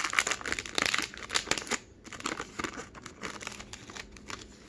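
Foil wrapper of a trading-card pack being torn open and crinkled by hand, crackling loudly for the first couple of seconds. It then settles into quieter, scattered rustles as the card stack is slid out.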